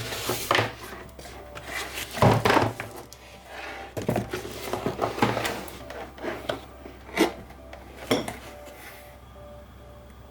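Knocks, bumps and rustles of a keyboard box and its packaging being handled and opened, with about half a dozen sharp knocks, the loudest a cluster a little over two seconds in. Near the end the handling stops and faint background music is left.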